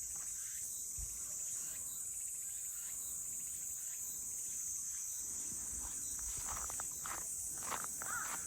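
Steady high-pitched drone of insects, with a few faint rustles near the end.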